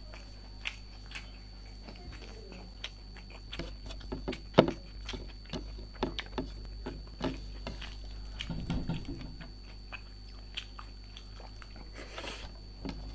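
A person eating close to the microphone: bites and chewing with many short, sharp mouth clicks, thickest in the middle.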